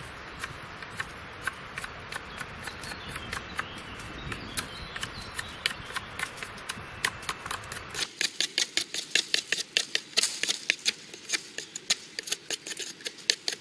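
A small pen knife whittling a green hazel stick to a point, making a quick run of short scraping, clicking strokes as the blade shaves off slivers of wood. About eight seconds in the strokes become louder, closer and sharper.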